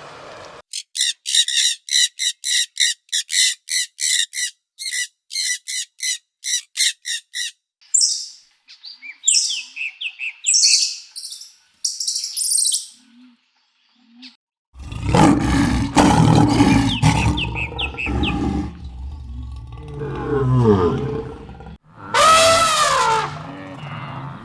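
A run of animal calls. First comes a bird chirping quickly and evenly, about three chirps a second for some six seconds, then other scattered bird calls. After a short pause a louder, lower animal call takes over, ending in a cry that falls in pitch.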